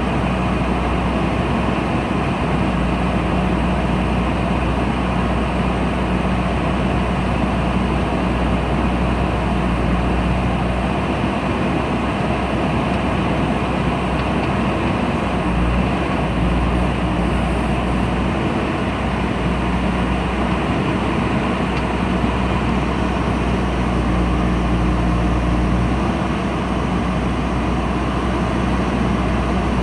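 JCB backhoe loader's diesel engine running steadily, with a constant low hum.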